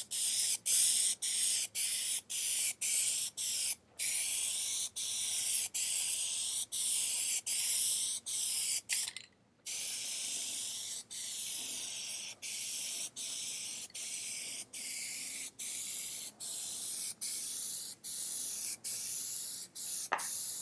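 Plasti Dip aerosol spray can hissing in short, rapid passes, about two a second, with a brief pause a little after nine seconds. It is a wet coat of rubber coating being built up over car emblems.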